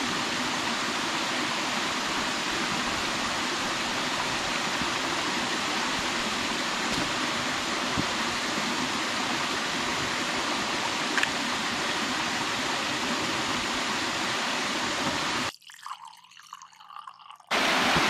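Mountain stream rushing steadily over rocks. About fifteen seconds in it drops away suddenly for a couple of seconds, then comes back louder.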